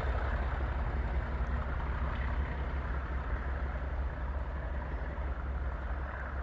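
Class 37 diesel locomotive's English Electric V12 engine running with a steady low rumble that slowly fades.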